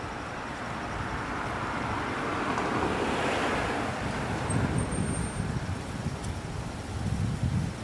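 Street traffic noise, a passing vehicle swelling and fading about three seconds in, followed by gusty wind rumbling on the microphone in the second half.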